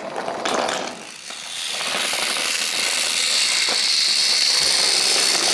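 Wooden toy trains rolling along wooden track, their wheels making a steady rattle that swells in after about a second and a half.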